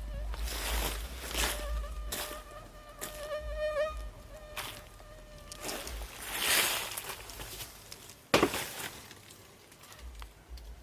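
A flying insect buzzing close by, its hum wavering in pitch for a few seconds, over low wind rumble and rustling, with one sharp knock near the end.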